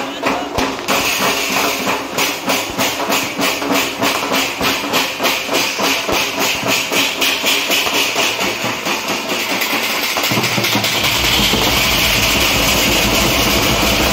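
Pad band drumming: large metal-shelled drums beaten in a fast, even beat of about four strokes a second over a steady hiss. About ten seconds in, a deep low boom comes in and the playing becomes a dense, continuous roll.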